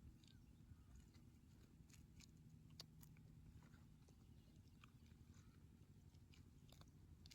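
Near silence: a faint low background rumble with a few faint scattered ticks.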